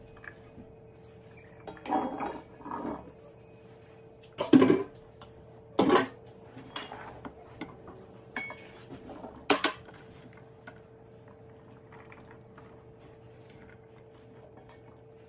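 Kitchenware handling: diced potatoes tipped from a metal colander into a bowl, then several sharp clanks of metal and dishes, the loudest about four and a half and six seconds in, with lighter taps and ticks after.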